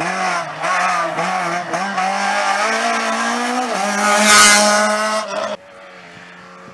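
A small hatchback race car's engine revving hard through a slalom of cones, its pitch rising and dipping again and again as the throttle is lifted and reapplied. About four seconds in there is a loud rush of engine and tyre noise as it passes close. Just before the end the sound cuts abruptly to another car's engine, faint and steady in the distance.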